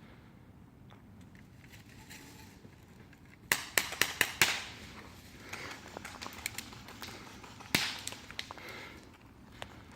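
A quick string of sharp cracks about three and a half seconds in, with rustling after, then scattered clicks and one more loud crack later on.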